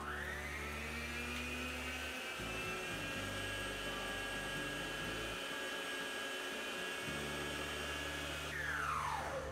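Electric stand mixer beating butter and brown sugar into a cream. The motor whine rises as it is switched on, runs steadily, then winds down near the end as it is switched off.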